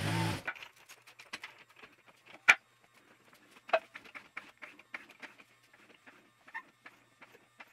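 Scattered metal clicks and clanks from a floor jack being handled and rolled under a car, with one sharp clank about two and a half seconds in and a lighter one about a second later. A car engine is heard briefly at the very start and cuts off abruptly.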